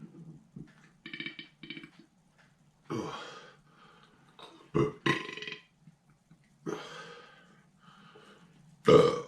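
A man belching loudly again and again, a burp every second or two, with the loudest one near the end.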